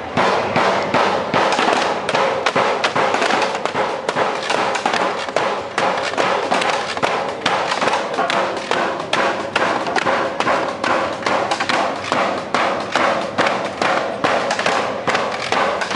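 A quick, uneven series of sharp knocks or slaps, about three or four a second, starting abruptly and going on without a break.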